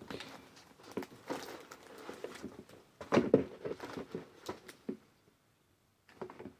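Rustling and crinkling of plastic packaging, with light knocks and clicks as small items are handled and packed into a basket. The loudest handling comes about three seconds in. It dies away after about five seconds, with one brief rustle near the end.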